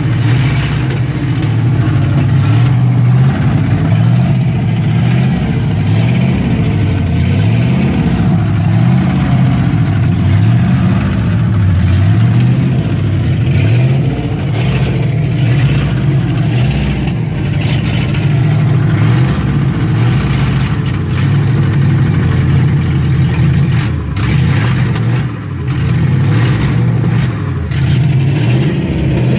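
Dodge truck's engine running and revving up and down over and over as the truck, stuck axle-deep in mud, is driven to get free; the pitch rises and falls every second or two, with a short lull near the end.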